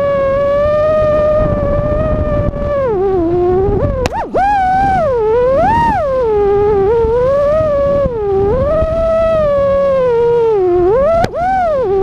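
FPV quadcopter's motors and propellers whining, heard through its onboard camera. The pitch holds steady for about three seconds, then swoops down and up again and again as the throttle changes, with two brief sharp breaks.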